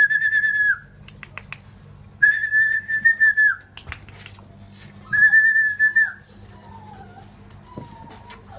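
A person whistling three long, steady notes, each dipping slightly in pitch as it ends, with light clicks and taps in the gaps between them.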